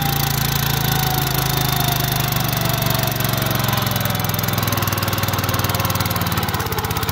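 Small single-cylinder engine of a walk-behind mini power tiller running steadily as its rotary tines work in wet mud.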